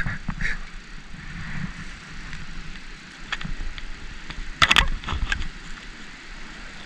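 Wind buffeting the microphone as a low rumble, with a short cluster of sharp clicks or knocks a little past the middle.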